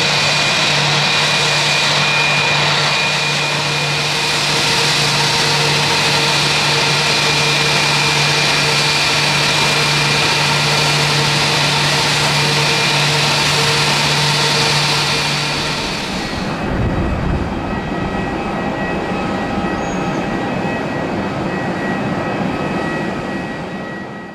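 Airbus A321's twin jet engines running at taxi idle: a steady whine with engine tones over a low hum. About two-thirds of the way through, the high whine drops away abruptly, leaving a lower rumble and faint steady tones.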